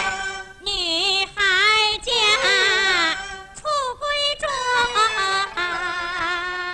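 A woman singing a line of a Pingju opera aria in a high register, with long held notes and wide vibrato, broken by short pauses between phrases.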